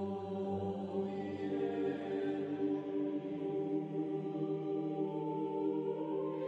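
Background music of slow, long-held notes with chant-like voices; a higher held note comes in about five seconds in.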